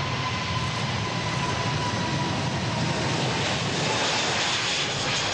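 Airbus A380's four Engine Alliance GP7200 turbofans at takeoff thrust as the jet rolls and lifts off: a steady jet roar with a faint high whine that slowly sinks in pitch.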